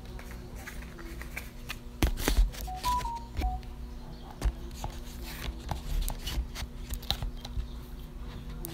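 Close handling noise at the recording phone as it is picked up and set back upright after falling over: a run of knocks, taps and rustles, loudest about two seconds in, with a few brief squeaks.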